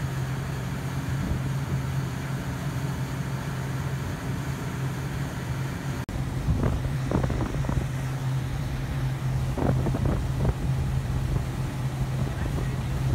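A motorboat's engine drones steadily underway, with wind buffeting the microphone and water rushing past the hull. The sound breaks off briefly about six seconds in, then resumes with a few louder gusts.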